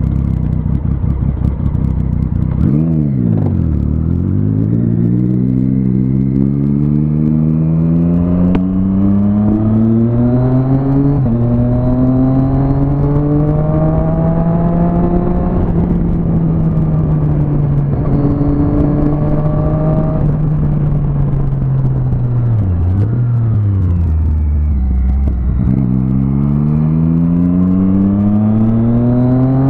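Inline-four sport motorcycle engine pulling away from a stop and accelerating through the gears, its pitch climbing in steps with a drop at each upshift. It then holds a steady cruise, eases off for a moment past the middle, and accelerates again near the end.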